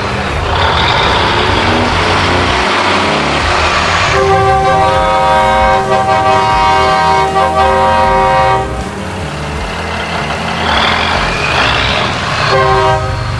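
A truck horn sounds one long steady blast of about four seconds, then a short second blast near the end, over the truck's running engine. Before each blast there is a hiss of rushing air.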